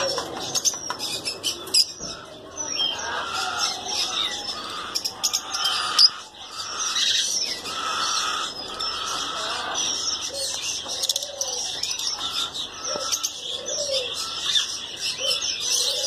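A flock of caged exhibition budgerigars chattering: a dense, continuous mix of overlapping high chirps and warbles, with lower warbling notes and scattered sharp clicks.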